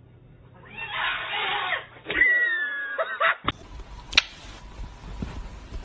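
An animal's call: about a second of hissing noise, then a high drawn-out cry with a slightly falling pitch lasting about a second. Then comes a single sharp click.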